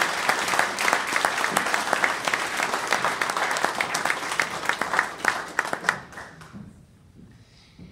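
Audience applauding at the end of a song, the clapping thinning out and dying away about six to seven seconds in.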